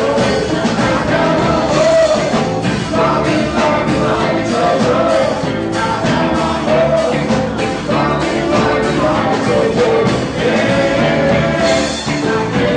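A band playing a song, with a singing voice over a steady, full band accompaniment.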